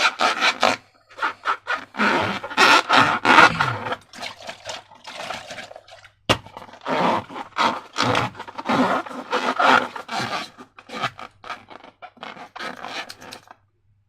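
Slime being squished and worked by hand, sticky squelching and scraping in quick irregular strokes, with one sharp click about six seconds in.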